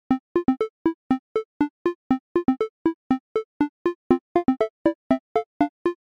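Light, playful background music made of short, detached notes, about four a second, each cut off quickly with silence between them.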